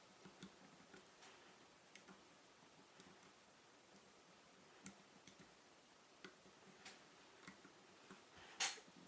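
Lock pick and tension tool in a Mul-T-Lock MT5 pin-in-pin cylinder: faint, scattered clicks as the last inner pins are worked, with one louder click near the end.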